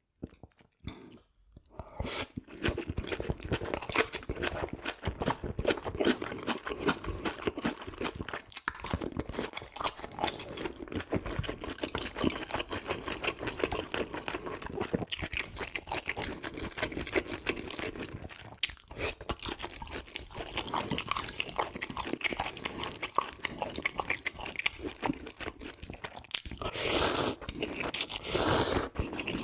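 Close-miked chewing and crunching of food: dense, wet chewing with many crisp crunches, starting about two seconds in and going on without a break. There is a louder noisy stretch near the end.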